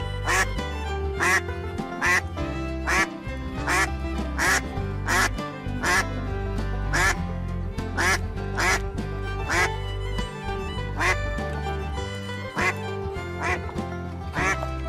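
A duck quacking over and over, about every three-quarters of a second, over background music with a steady bass.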